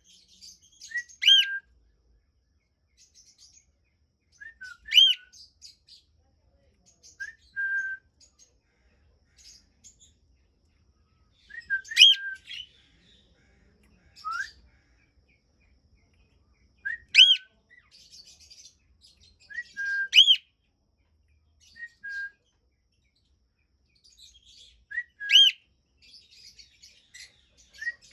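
Cockatiel calling, a loud rising whistled call repeated about every two to five seconds, with fainter high twittering in between.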